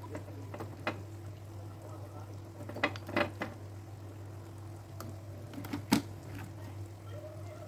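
A cooking utensil clinking and scraping against a pan as chicken is stirred: a few sharp clinks, a cluster about three seconds in and the loudest about six seconds in, over a steady low hum.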